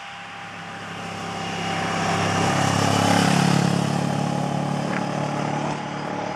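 A motorcycle engine passing along the road, growing louder to a peak about three seconds in and then fading as it moves away.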